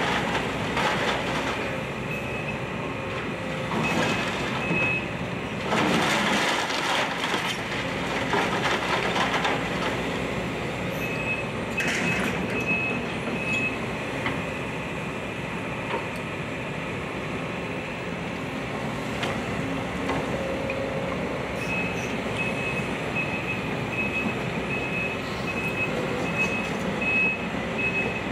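Excavator engine running steadily as its bucket breaks up a wood-framed house, with crashes of splintering timber and falling debris, the loudest about four and six seconds in and again near twelve seconds. A backup alarm beeps in spells, about two beeps a second, running steadily through the last six seconds.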